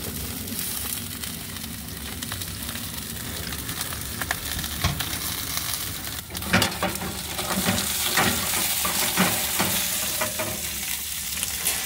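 Salmon fillets sizzling steadily as they sear in a hot cast iron skillet. From about halfway, a few sharp clicks and knocks of metal tongs and pan handling sound over the sizzle.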